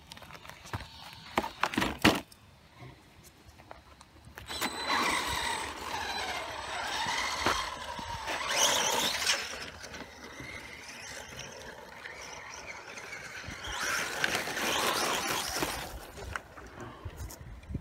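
Maverick Strada SC short course RC truck's 3300kV brushless motor whining, its pitch rising and falling with the throttle. A few sharp knocks about two seconds in.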